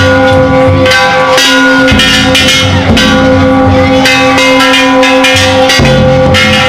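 Ishidori-bayashi from a festival float: a large taiko drum and hanging bronze gongs (kane) struck hard and fast. The gongs ring on continuously over dense, loud beats.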